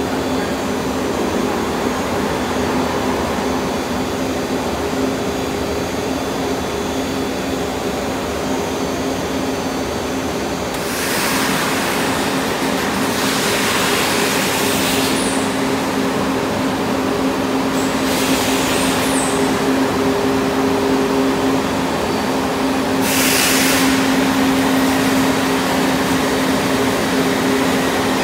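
ASL-RT8 ride-on concrete floor grinder running and grinding a concrete floor: a steady electric-motor hum and drone under the noise of the grinding heads on the concrete. Louder hissing surges come and go several times in the second half.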